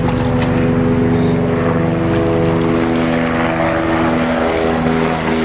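Background music: sustained chords over a low hum, the chord shifting to new notes about every two seconds.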